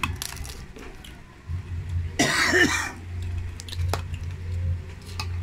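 A person coughs once, a short harsh burst about two seconds in, over a low steady hum, with a few light clicks of cutlery.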